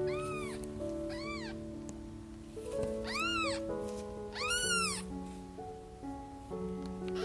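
Newborn kittens mewing: four short, high-pitched cries, each rising then falling in pitch, the last two louder, as the kittens call for their mother. Background music plays underneath.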